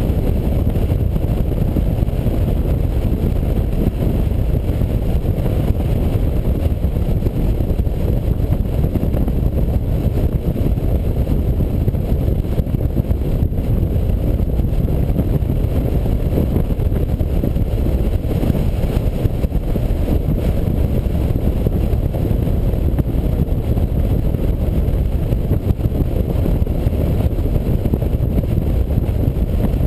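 Touring motorcycle cruising steadily at road speed: a constant low rumble of engine and wind rushing over the camera's microphone.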